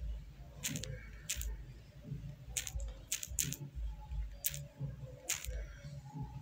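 A series of sharp, irregular clicks, about seven in five seconds, like mouse or key clicks, over a low rumble.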